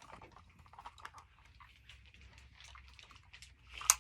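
A plastic toy being handled: scattered light clicks and rustling, with one sharp click just before the end.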